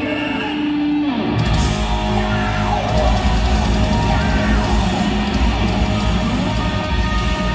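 Live hard rock band playing loud through a concert PA, heard from the audience: electric guitar over bass and drums. For about the first second and a half the drums and bass drop out under a single held note, then the full band comes back in.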